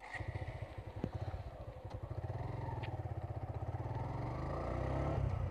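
Motorcycle engine and exhaust running under way, a pulsing beat that quickens and grows louder as the bike picks up speed.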